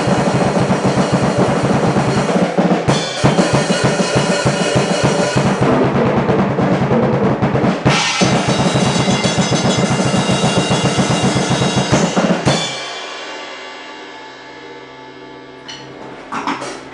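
Acoustic drum kit played fast and continuously. About three-quarters of the way through the playing stops and the ringing dies away slowly, followed by a few light knocks near the end.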